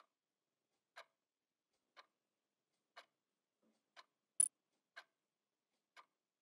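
Clock ticking faintly, once a second. About four seconds in, a single short, high electronic blip from a phone text message.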